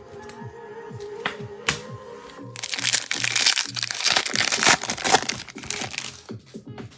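Crinkling and tearing of a foil trading-card pack wrapper as cards are handled, loudest from about two and a half seconds in for several seconds, over quiet background music.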